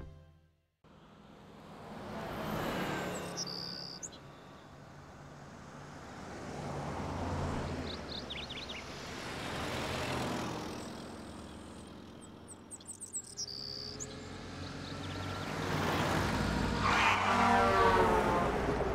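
Street sound effects for an animated scene: cars driving past one after another, each swelling and fading, with a few short bird chirps. Near the end a duck quacks, the loudest sound.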